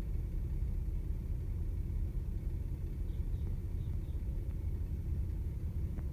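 Car engine idling steadily, a low rumble heard from inside the cabin.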